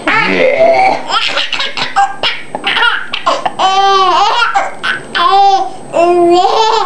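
A seven-month-old baby belly-laughing in a run of loud, high-pitched squealing bursts, each rising and falling in pitch. The laughter is set off by a man's fake belching, and a short low voice sound rises in pitch within the first second.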